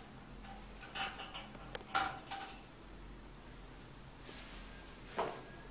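Hands handling the glass cover of a jacketed glass reactor as its packing tape is removed: a few light knocks and clinks of glass and plastic fittings, the loudest about two seconds in, and a short rasp of tape pulled away a little after four seconds.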